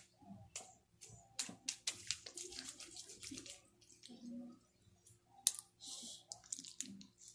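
Homemade slime being squeezed and kneaded in the hands, giving irregular wet clicks and crackles.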